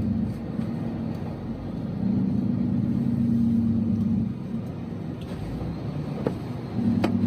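Motor vehicle engine running, a low steady hum that grows louder for a couple of seconds at a time and eases off, with a few faint clicks.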